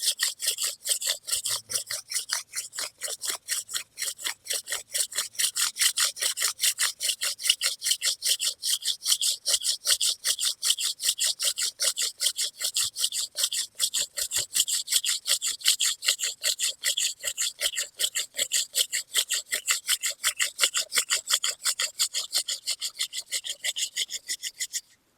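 A wooden hand drill spindle spun back and forth between the palms, grinding in its hearthboard socket: a fast, even run of scraping strokes, several a second, that stops suddenly near the end.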